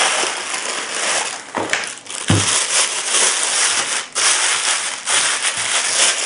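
Clear plastic bag crinkling steadily as a pair of binoculars is worked out of it by hand, with one dull thump about two seconds in.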